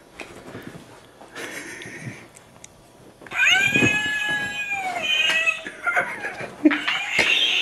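Halloween toy screeching with a long, high-pitched, cat-like yowl starting about three seconds in. It breaks off briefly and starts again about a second before the end.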